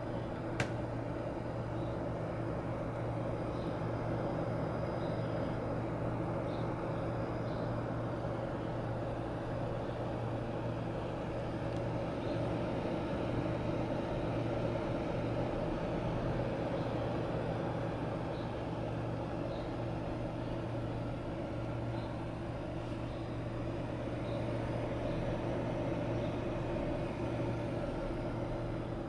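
Custom water-cooled gaming PC running: a steady hum and whir from its cooling fans and water pump. A short click about half a second in.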